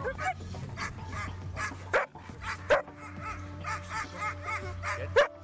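Avalanche search dog in training whining and yipping in quick, high calls, with three louder sharp barks, about two seconds in, near three seconds and near the end. Background music runs underneath.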